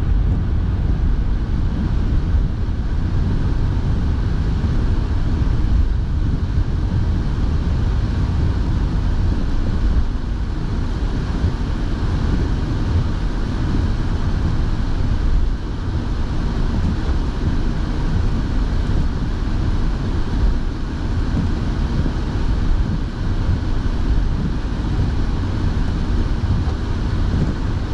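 Steady noise inside a moving car: a low road and engine rumble, with the car's heater fan blowing.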